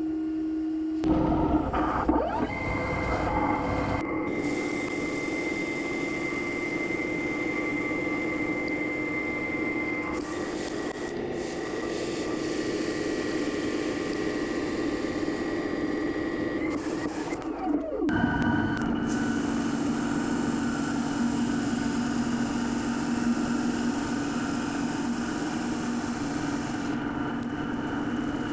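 Mazak Integrex mill-turn machine running a cut. The spindle and drive give a steady whine that shifts pitch a couple of times, under a hiss of flood coolant spraying on the spinning part.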